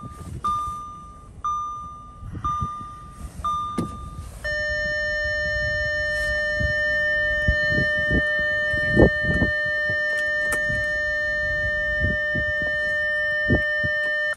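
Audi A6's instrument-cluster warning chime with the ignition on and the engine not running. A short beep repeats about once a second for the first few seconds, then gives way to a steady unbroken tone. Occasional dull knocks sound underneath.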